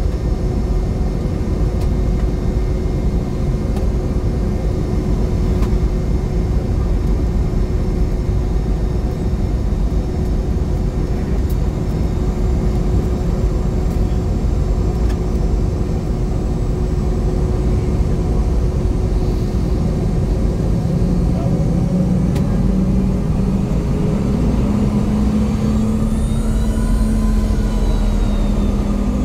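A Boeing 717's BR715 turbofan engines and its rolling airframe heard from inside the cabin while the jet rolls out and taxis after landing: a steady low rumble. A few seconds before the end, a whine rises and then falls away again as the engines change power.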